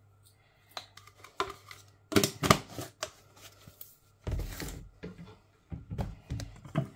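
Kitchen handling noises: a few sharp clicks, then louder clattering and rustling bursts about two seconds in, around four and a half seconds, and again near the end, over a faint low hum.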